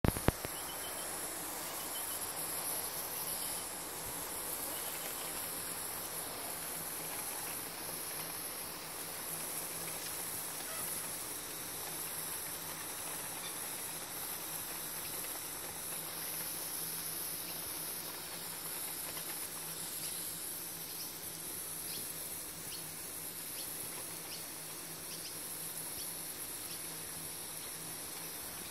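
Garden hose spray hissing steadily as it showers water, under a steady high-pitched insect chorus. A couple of sharp knocks right at the start.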